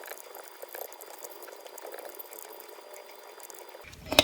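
Faint rustling and light scratchy clicks of a cloth towel rubbing on an electric drill motor's armature commutator as the armature is turned by hand, with a single sharp click near the end.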